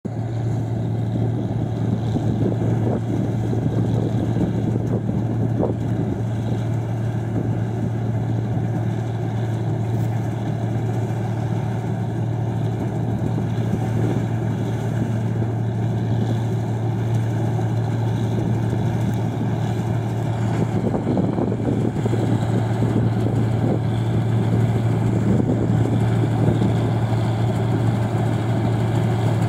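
New Holland 1545 combine harvester running under load as it cuts ripe rice: a steady deep engine hum under a dense mechanical din from the header and threshing gear, growing a little louder as the machine comes closer.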